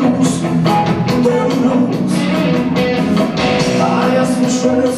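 Blues-rock band playing live: electric guitar over drums, with sustained notes and steady drum and cymbal hits.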